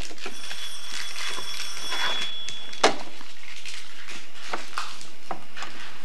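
Plastic toy kitchen being handled, with light clicks and one sharp knock about three seconds in. A steady high electronic tone sounds for about the first two seconds, then stops.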